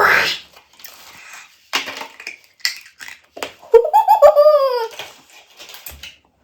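A person's wordless vocal cries: a short rising yelp at the start, then a longer, loud, wavering wail about four seconds in, with short noisy bursts between them.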